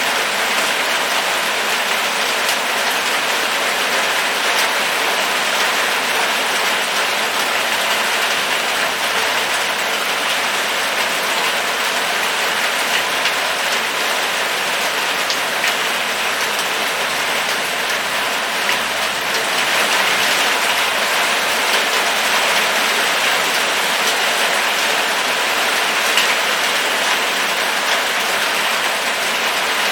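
Steady rain falling, an even continuous patter of many drops with no let-up.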